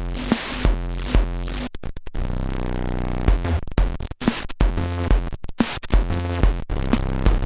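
Korg Monotribe analog synth and drum machine looping a pitched synth pattern over a kick beat at about two hits a second, run through a Korg Kaoss Pad. Just under two seconds in, the sound breaks into rapid stuttering cut-outs before the loop comes back.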